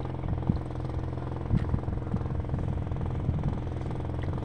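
A small engine running steadily at an even pitch, with irregular low knocks over it.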